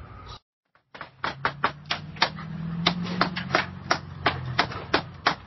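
Rapid, sharp knocks of nails being driven into siding, several a second and unevenly spaced, starting about a second in after a moment of silence. A low steady hum runs under them for a few seconds.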